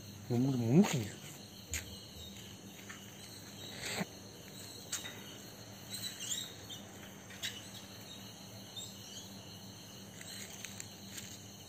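Crickets chirping steadily, with a few faint clicks. About half a second in, a person gives a short sing-song call that rises in pitch.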